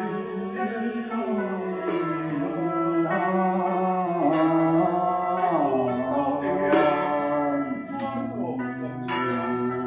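Taoist ritual music: a sustained melody that slides in pitch, with a sharp struck accent about every two and a half seconds, four times.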